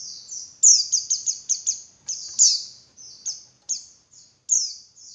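Female white-eye (pleci) calling: a string of high, thin chirps that slide down in pitch, several in quick succession about a second in, then more spaced out. This is the female call used as a lure to spur male white-eyes into singing.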